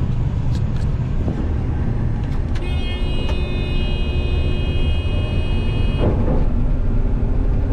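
Grain combine running with its separator and draper header engaged, a heavy steady rumble. A steady high-pitched tone sounds over it for about three seconds, starting a little under three seconds in.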